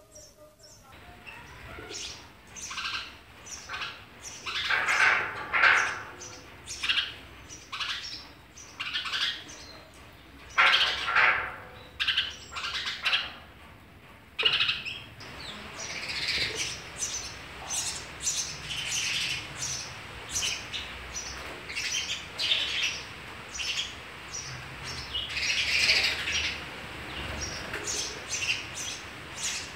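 House sparrows chirping: a steady run of short, high chirps with several louder clusters, while an adult feeds nestlings at the nest hole.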